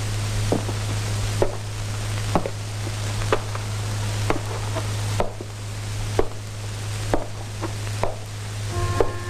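A clock ticking slowly and evenly, about one tick a second, over a steady low hum. Soft string music comes in near the end.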